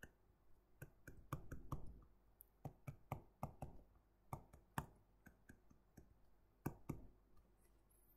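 Stylus tapping and clicking on a tablet screen during handwriting: faint, irregular clicks in quick runs, with a pause just before the last few.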